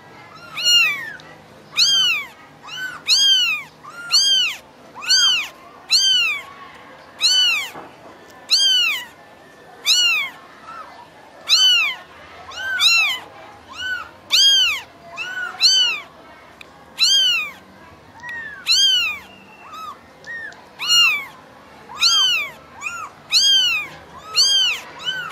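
Very young kittens mewing over and over, about one high, arched call a second, each rising then falling in pitch: kittens calling for their mother.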